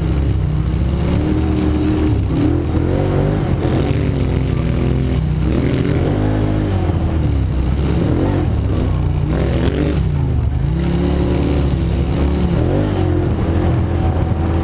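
ATV engine running under varying throttle, heard close up from on board the quad, its pitch rising and falling as the rider speeds up and eases off along a dirt trail.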